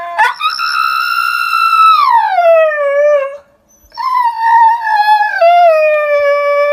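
Husky howling: two long howls, the first held high for over a second and then sliding down in pitch, and after a short break about halfway through, a second lower howl that wavers.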